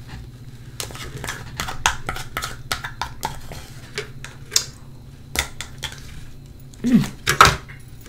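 A spoon clicking and scraping in a small cup as it scoops the last of the contents, a string of short irregular clicks.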